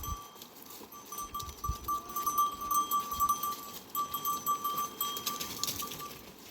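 Bells on a herd of goats ringing steadily, a high tinkling that grows louder through the middle and fades near the end.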